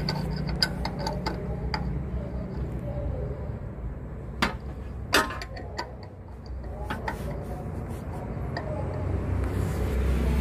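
Scattered sharp metal clicks and knocks as tools and parts are handled around the accessory belt and tensioner, over a steady low hum.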